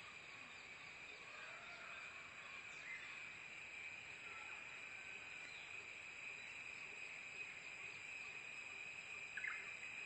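Faint natural outdoor ambience: a steady high-pitched insect drone, with a few faint bird chirps scattered through it.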